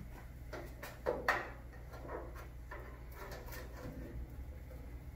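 Light handling clicks and knocks, the two loudest about a second in, over a steady low hum.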